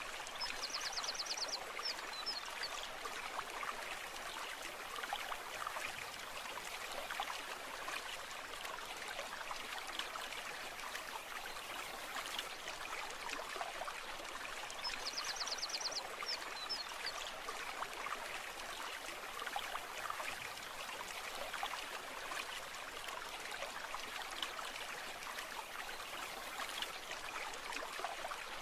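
Small brook babbling and trickling steadily. A short high trill cuts through twice, about a second in and again about halfway.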